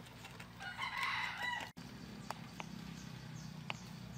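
A rooster crows once, a call of about a second starting about half a second in. A few sharp clicks follow later, chopsticks tapping the small ceramic dipping bowl as the salt-and-pepper dip is stirred.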